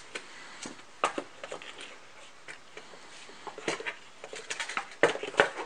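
Soft rustling and scattered light knocks and clicks of someone moving about and handling things close by, in a small room.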